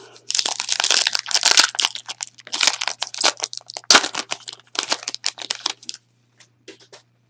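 Plastic trading-card pack wrapper crinkling and crackling as it is handled and torn open, in dense bursts that stop about six seconds in, followed by a few faint ticks.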